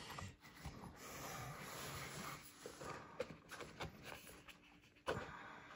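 Faint rubbing and scraping of cardboard board-game pieces being handled and pushed together, with a few soft knocks, the sharpest about five seconds in.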